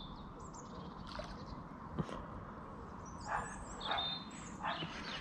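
Small birds chirping in short, high calls over a steady outdoor background, with a few short soft noises in between.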